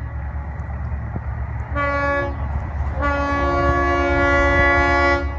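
Freight locomotive's air horn sounding a chord, a short blast about two seconds in, then a long blast of about two seconds, over the steady low rumble of the approaching train.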